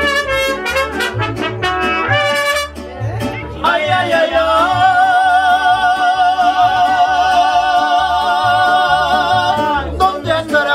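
Dance music with a steady bass beat: quick runs of notes, then from about four seconds in a long note held with vibrato for about six seconds.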